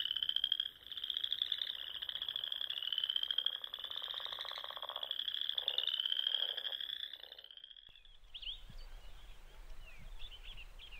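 A chorus of frogs calling: rapid pulsed trills, repeated over and over, that stop about eight seconds in. A few faint chirps follow.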